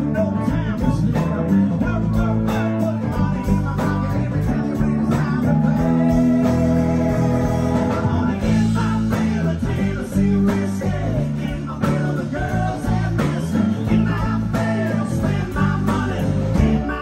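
Live band playing a song with acoustic and electric guitars, keyboard and drums, with a steady beat.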